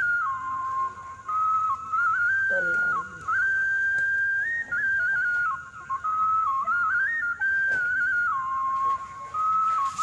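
A whistled melody: one clear tone stepping up and down between notes in short phrases.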